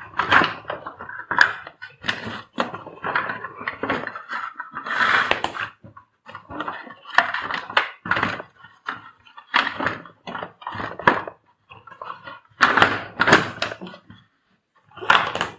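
Irregular knocking and plastic clattering from hands working the vacuum cleaner's cord reel mechanism, in a series of short bursts with brief pauses between them.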